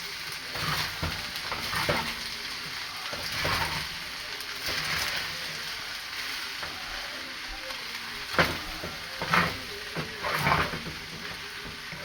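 Chicken fried rice sizzling in a hot pan as it is stirred and turned, with scraping strokes against the pan at irregular intervals, the sharpest three in the last few seconds.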